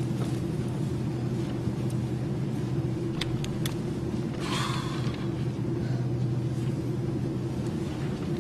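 Steady low drone of an airliner cabin in flight, jet engine noise with no break in it. A few light clicks come about three seconds in, and a short hiss about halfway.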